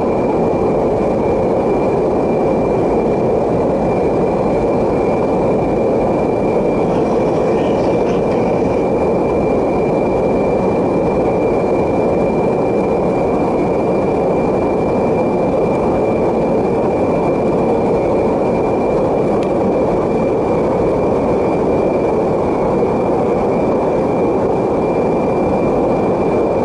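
Steady drone of a jet aircraft heard from inside its cabin: engine and airflow noise, with a thin steady whine above it.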